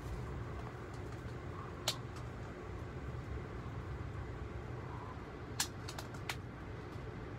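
Steady low rumble of an Amtrak Amfleet I coach riding at speed, heard inside the car. A few sharp clicks cut across it, one about two seconds in and a quick cluster of four a little past halfway.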